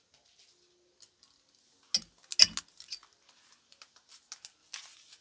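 Clothes on hangers being handled: two sharp clicks about two seconds in, then scattered light ticks and rustling of a beaded dress.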